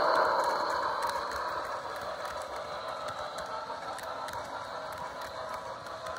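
HO scale model train running on the track: a steady mechanical rattle and whir of wheels and motor with scattered light clicks, fading over the first two seconds and then going on at a lower level.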